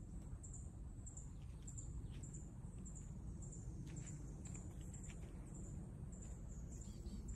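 A bird's short, high chirp repeating about twice a second, with a few fainter calls in between, over a low steady rumble.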